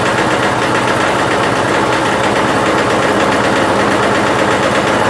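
Poulan Pro push mower's small engine idling steadily, running on gasoline vapor fed through a hose into its intake instead of through its worn-out carburetor.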